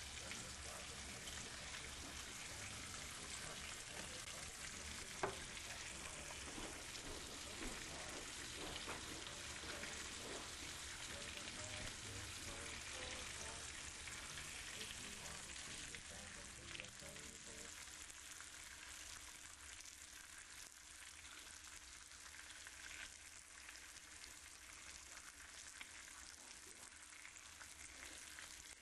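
Strips of Hungarian smoked bacon frying on a griddle: a steady sizzle with scattered crackles of spitting fat, and one sharper pop about five seconds in.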